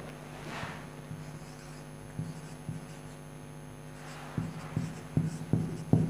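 Marker pen writing on a whiteboard: a couple of short strokes about two seconds in, then a quicker run of about five strokes near the end, over a steady low hum.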